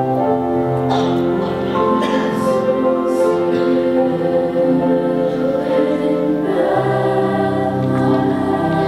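Women's chorus singing held, many-voiced chords, with crisp 's' sounds a few times in the first few seconds and a move to a new, fuller chord about two-thirds of the way through.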